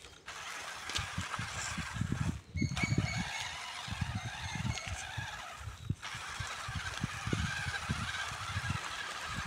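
Small RC rock crawler running over gravel: a steady hiss of electric motor and tyres on loose stones, with irregular low rumbles. The sound breaks off briefly twice.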